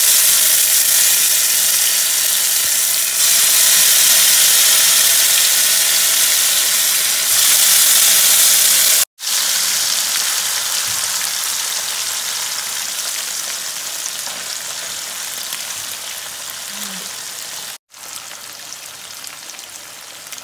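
Loud sizzling of chilli-marinated small pallathi fish as they go into hot oil and fry in a pan. The sizzle slowly eases in the second half and breaks off abruptly twice.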